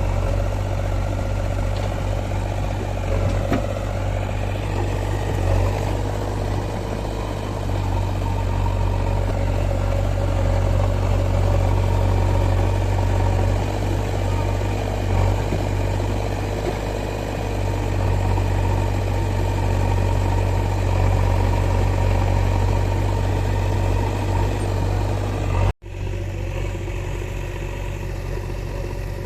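Diesel engines of a backhoe loader and tractors running steadily at work, a continuous heavy hum. The sound drops out for an instant near the end.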